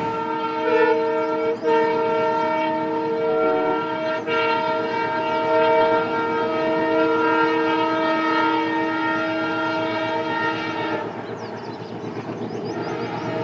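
Diesel locomotive horn sounding one long, multi-tone blast that cuts off about eleven seconds in, leaving the train's running rumble.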